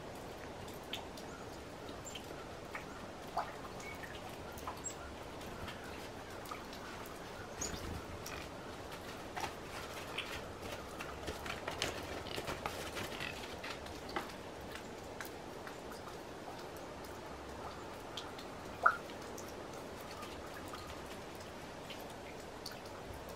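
Quiet outdoor ambience: a steady faint hiss with scattered light ticks and a few short chirps, and one sharp click about three quarters of the way through.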